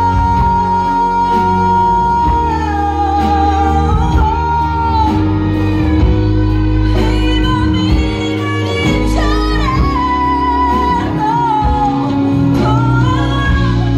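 A female ballad singer performs live with band accompaniment, opening on a long held note and then singing a moving melody over the band.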